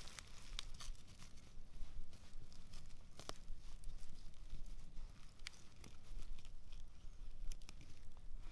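Wood campfire burned down to embers, crackling with irregular sharp pops, one standing out about three seconds in.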